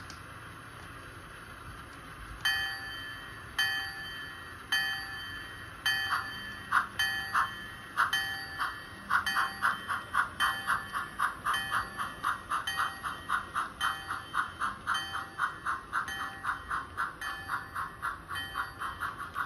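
Model steam locomotive's onboard sound system: a steady steam hiss, then the bell starts ringing about once a second. From about six seconds in, chuffing starts and quickly speeds up to several chuffs a second as the engine pulls away, with the bell still ringing.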